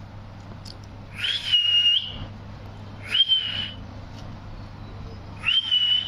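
Alexandrine parakeet giving three loud whistled calls, each sliding quickly up into a short held note, a couple of seconds apart.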